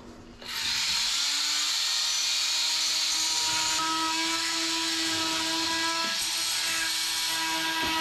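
Fein oscillating multi-tool starting up about half a second in and running steadily at one pitch, its blade cutting a small notch into a wooden bulkhead.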